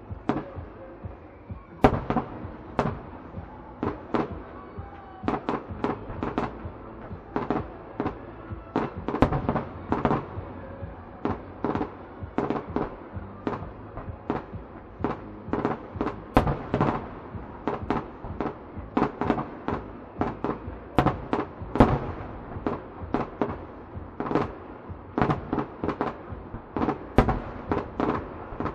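Fireworks display: aerial shells bursting in a continuous barrage of sharp bangs, about two or three a second, with crackle between them.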